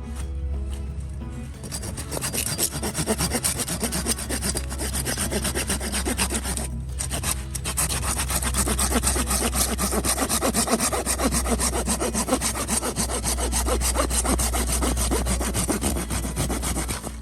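Hand saw cutting through firewood in steady back-and-forth strokes, with a short pause about seven seconds in.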